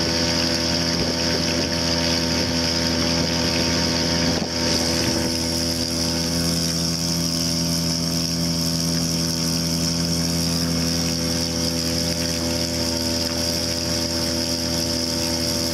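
Gamefisher 3.0 hp two-stroke outboard motor running at a steady speed, pushing the boat along, with one short dip about four seconds in.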